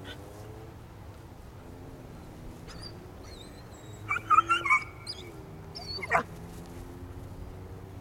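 Young Belgian Malinois whining and yelping: a quick cluster of high cries about four seconds in, then one more sharp cry about two seconds later, over a faint steady hum.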